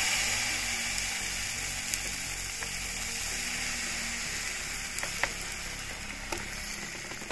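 Yeast batter with chopped vegetables sizzling as it is poured into hot vegetable oil in a frying pan. The sizzle is loudest at first and eases off slowly, with a few light clicks from the ladle in the pan.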